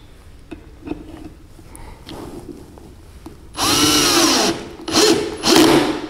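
Bosch GSB 120-LI 12 V cordless drill driver driving a screw into a wooden board with a Phillips PH2 bit. The motor whirs in one long run a little past halfway, its pitch sagging as the screw bites, then in two shorter bursts near the end.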